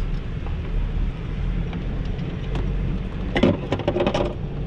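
Golf cart riding along, with steady low rumble and wind buffeting the cart-mounted microphone. A brief burst of louder rattling knocks comes a little over three seconds in.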